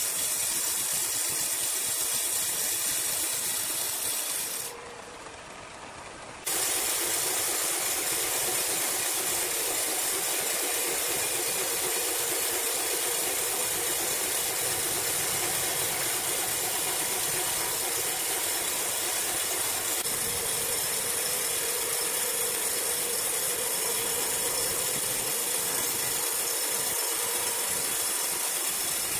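Horizontal band sawmill running, its blade sawing lengthwise through a large green ironwood log: a steady, mostly high-pitched noise. About five seconds in it drops sharply for a second and a half, then comes back at full level.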